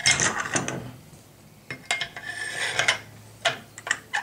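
Parts of a WE Tech SCAR-L gas blowback airsoft rifle being handled and fitted back together during reassembly: metal sliding and scraping, with a few sharp clicks.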